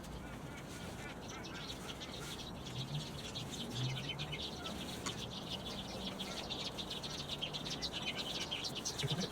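Birds chirping and twittering in a busy, rapid chatter that gets denser after about two seconds.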